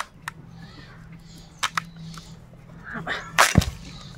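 A giant taro corm (mankochu) being cut on a boti blade: a few sharp crunching clicks as the blade bites into the fibrous skin, then, about three and a half seconds in, a louder crunch and a heavy thud as the corm is cut through.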